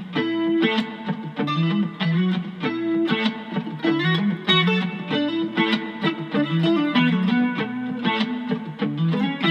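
Electric guitar playing a funk riff: a quick run of short single notes with sharp, rhythmic picked attacks.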